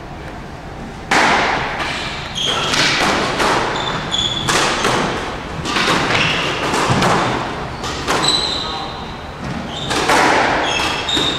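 A squash rally: the ball is struck by rackets and rebounds off the court walls in sharp, echoing hits at uneven intervals, about a dozen in all. Short high squeaks of shoes on the court floor come in several times.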